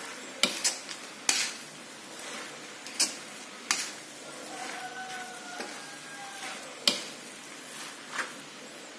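Noodles and vegetables being stir-fried in a wok: a steady sizzle, with the spatula knocking and scraping against the pan at irregular moments, about seven sharp knocks in all.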